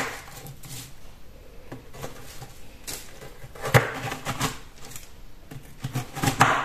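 Kitchen knife pressing through a set slab of peanut and brown-sugar halwa: scattered crunching and cracking, heaviest about four seconds in and again near the end. The sugar syrup has cooled hard, so the slab cracks and breaks as it is cut rather than slicing cleanly.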